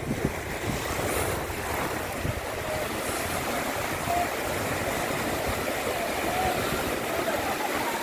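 Small ocean waves breaking and washing over the shallows as steady surf noise.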